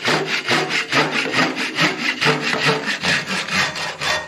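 Dual-sided Japanese pull saw crosscutting a wooden axe handle in a vise with its fine crosscut teeth: quick, even back-and-forth strokes, about three a second.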